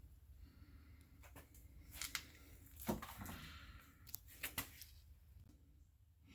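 A few faint, sharp clicks and knocks, the strongest about three seconds in, over a quiet room background.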